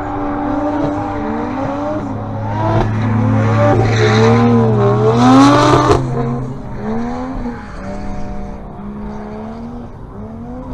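A car's engine running hard under a wavering squeal of tyres, growing louder to a peak about five and a half seconds in, then stopping abruptly and fading away.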